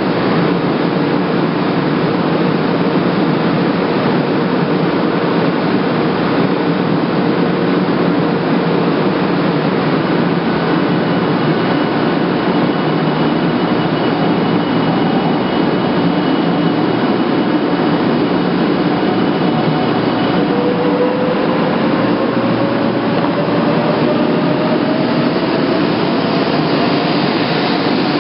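Shinkansen bullet train standing at the platform with a loud, steady hum, then pulling away about two-thirds of the way in. Its electric traction motors give a steadily rising whine as it accelerates.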